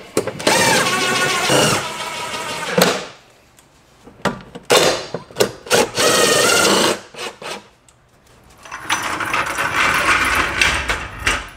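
Cordless power tool driving in the bolts of a fuel tank strap, in three runs of two to three seconds each, its motor pitch rising and falling.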